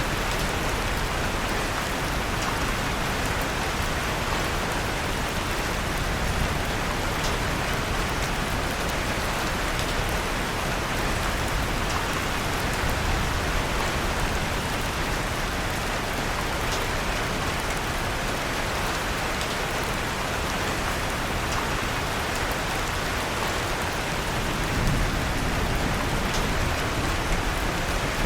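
Steady rain falling, a continuous even hiss, with a few faint crackles from a wood fire in a fireplace.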